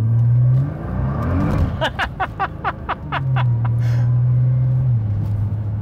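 Nissan GT-R R35's twin-turbocharged V6, heard from inside the cabin, pulling hard from a standstill: the revs climb, rise and fall about a second in, then hold steady and drop a step near the end. A short run of laughter from the driver comes about two seconds in.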